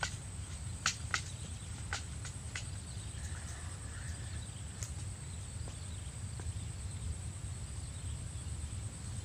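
Open-air ambience: a steady low rumble with a handful of sharp clicks, most of them in the first three seconds and one more about five seconds in.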